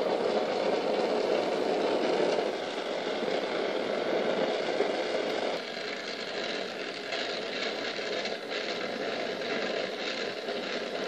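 Gas torch flame hissing steadily as it heats gold in a hollowed-out potato; the sound thins a little about halfway through.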